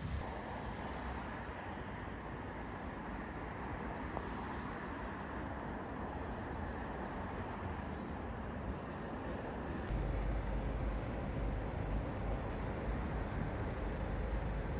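Steady hum of road traffic in the city. About ten seconds in the sound changes abruptly to a louder low rumble.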